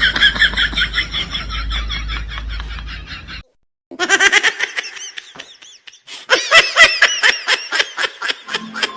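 High-pitched laughter in rapid repeated bursts, broken by a brief silent cut about three and a half seconds in and picking up again louder about six seconds in.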